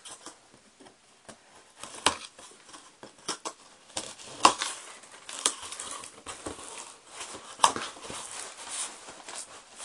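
Cardboard shipping box being opened by hand: packing tape being slit and the cardboard flaps worked loose, with rustling and several sharp scrapes and knocks, the busiest in the second half.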